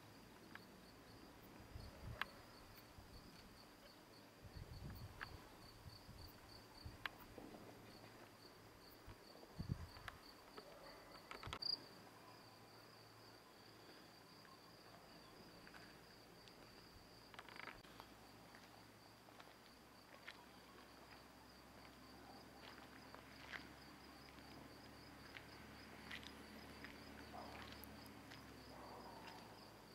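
Faint outdoor ambience with a steady high-pitched insect trill, like a cricket, running throughout, and a few soft knocks and taps, the loudest about ten and twelve seconds in.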